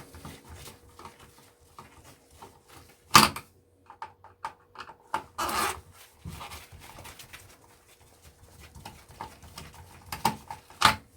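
Scattered small clicks and taps of a screwdriver and loose screws on a projector's plastic casing, with one sharp knock about three seconds in and a short scraping rustle a couple of seconds later.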